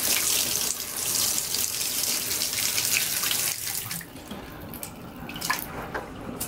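Water running and splashing into a bathtub, a steady hiss that eases off about four seconds in.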